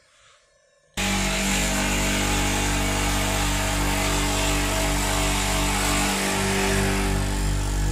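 Near silence for about a second, then the electric motor of a screw (auger) powder feeder cuts in abruptly and runs steadily, a loud hum with a whir over it.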